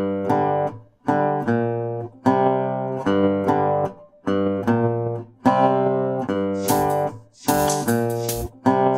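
Background music: acoustic guitar playing strummed chords in short phrases.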